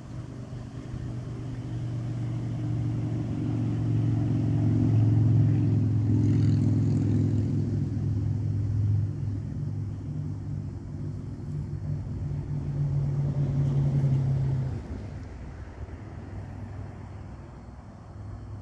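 An engine running, swelling over the first few seconds, then falling off sharply about fifteen seconds in and carrying on more faintly.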